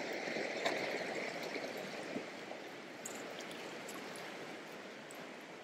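River water rushing over rocks, a steady hiss that eases off somewhat over the first couple of seconds.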